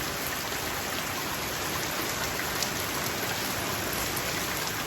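Steady rain falling, with rainwater running off the edge of a roof that has no gutter.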